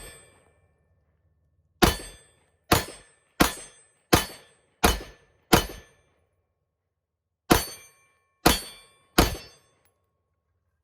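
Gunshots from a firearm fired in a string: six shots about 0.7 s apart, a pause of about two seconds, then three more.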